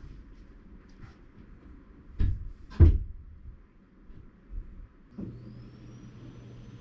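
Two heavy thumps, then a vacuum cleaner in the next room switches on about five seconds in, its motor whine rising as it spins up and settling into a steady hum.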